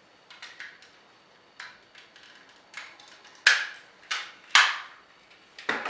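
Hard plastic parts of a Power Rangers Samurai Megazord toy clicking and knocking as they are handled and snapped into place. A few light clicks come first, then three loud snaps around three and a half to four and a half seconds in, and another near the end.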